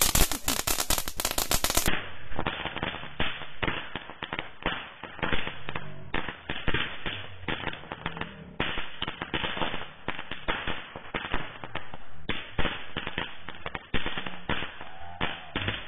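Lollipop cracker, a stick-held Diwali novelty firework, burning and crackling with a dense, continuous run of rapid small pops as it sprays sparks.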